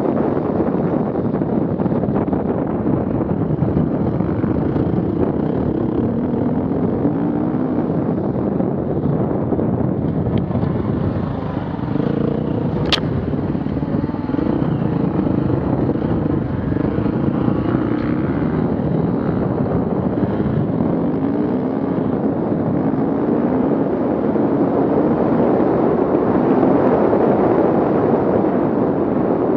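Off-road vehicle engines running and revving under load, their pitch rising and falling over a steady rumble. A single sharp click about 13 seconds in.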